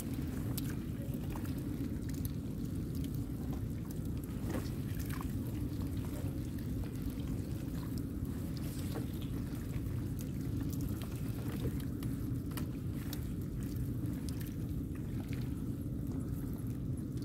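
Water pouring and dripping off a fine-mesh gill net packed with tamban sardines as it is hauled in over a boat's side, with scattered faint ticks and patters, over a steady low motor rumble.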